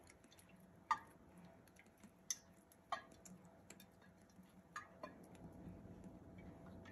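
Mostly quiet, with a handful of faint, short, sharp clicks and ticks from handling a glass olive oil bottle while oil is drizzled over vegetables in a ceramic baking dish.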